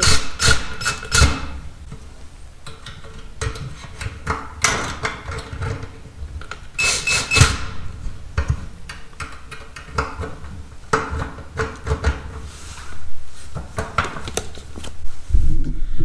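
Cordless drill-driver running in short bursts as it drives the screws of a metal strain-relief cord clamp, with scattered clicks and knocks of metal parts being handled.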